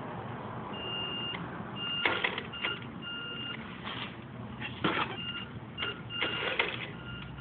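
Electric RC drift car giving short, steady high-pitched tones of uneven length, a dozen or so, mixed with brief whirs and clicks from its drivetrain as it is nudged on carpet.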